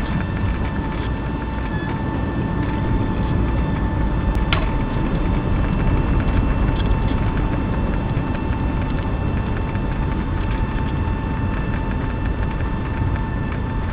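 Steady low rumble inside the cabin of a Boeing 757-200 rolling on the runway after landing, with a steady high whine over it.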